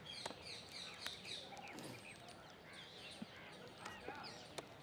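Small birds chirping in quick, high, overlapping calls, with a few sharp clicks scattered among them.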